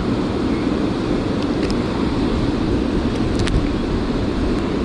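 Steady rushing of water at a dam, with a few faint clicks about halfway through.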